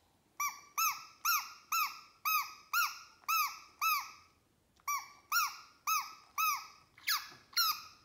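Toy bird whistle blown in short puffs, about two chirps a second, each chirp a whistle that rises and falls in pitch. A brief pause just before halfway, then the chirping goes on.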